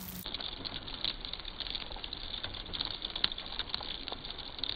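Small ice pellets pattering on a car's roof and rear window: a dense, irregular scatter of light ticks over a steady hiss.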